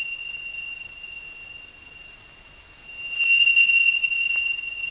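A steady high-pitched electronic tone held on one note; it fades after the start and swells louder again about three seconds in, with a faint click near the end.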